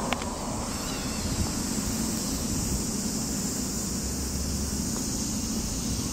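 Steady outdoor street ambience: a constant high-pitched hiss over a low rumble, with no distinct events.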